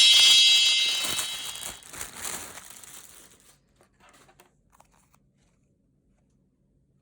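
Packaging crinkling under a high-pitched ringing tone that fades out in the first two seconds, then a few soft crinkles and clicks before it goes silent.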